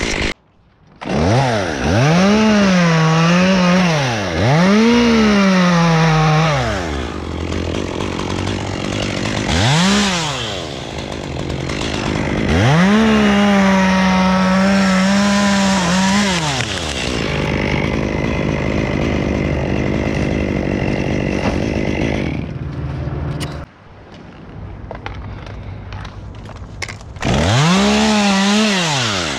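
Gas chainsaw revving up to full speed in bursts of about two to four seconds, dropping back to idle between them, as in cutting limbs.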